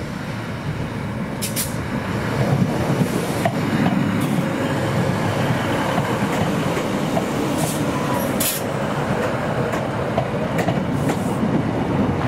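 A train running on the line: a steady rumble that swells about two seconds in and holds, with a few sharp clicks through it.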